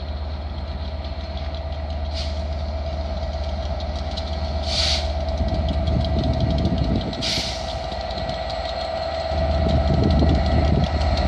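EWS Class 67 diesel locomotive's two-stroke V12 engine running as it draws slowly in hauling passenger coaches: a steady engine tone over a low rumble, growing louder toward the end. Three short hisses come about two and a half seconds apart.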